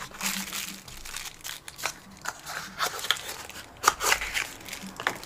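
Packaging being handled: crinkling and crunching with scattered small clicks, and a sharper knock about four seconds in.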